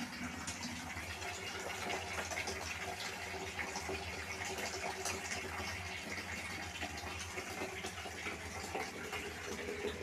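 Water sloshing and gurgling at the mouth of a large flexible suction hose as it draws water off a concrete floor, over a steady low hum.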